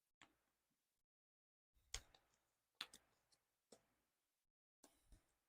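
Faint, scattered clicks and taps of a small photo card being handled and slipped into a plastic photo sleeve. There are about seven separate light clicks at uneven intervals, the loudest about two seconds in and just before three seconds.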